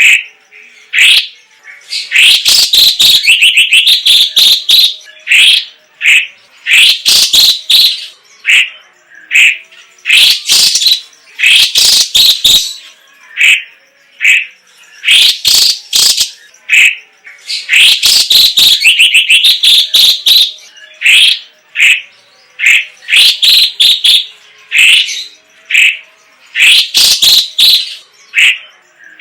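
Cucak cungkok (Chinese green leafbird) singing: loud bursts of rapid, sharp chattering notes and trills, each burst a second or two long, broken by short pauses.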